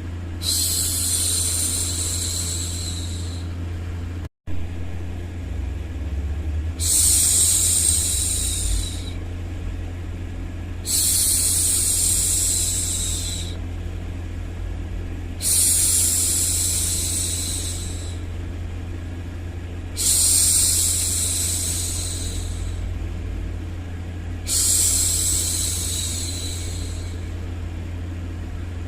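A woman shushing a baby, a long 'shhh' about six times at even intervals of roughly four and a half seconds, each lasting two to three seconds, over a steady low hum of white noise. The sound cuts out for an instant about four seconds in.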